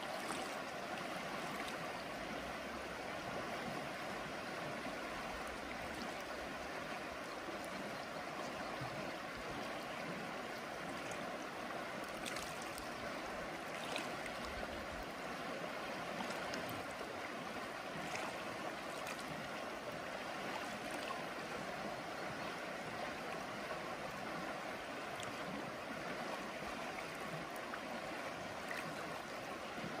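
River water rushing steadily over a shallow riffle, with faint splashes now and then.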